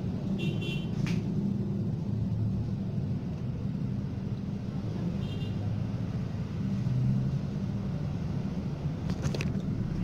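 Steady low rumble of background noise, with two brief high-pitched chirps, one about half a second in and one about five seconds in, and a few light clicks.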